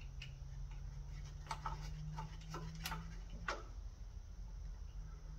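A run of light, irregular clicks and ticks from parts being handled and bolts being hand-started while a new electric starter is fitted to a lawn tractor engine, over a low steady hum.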